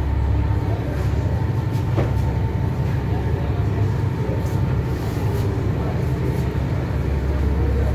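Tour boat's engine droning steadily below deck, a deep continuous rumble, with a light click about two seconds in.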